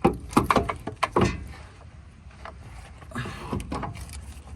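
Metal knocks and clunks as a replacement starter motor is worked up into its mounting under a 2008 Chevy 2500HD diesel truck: a quick cluster of sharp knocks in the first second or so, then lighter rattling near the end.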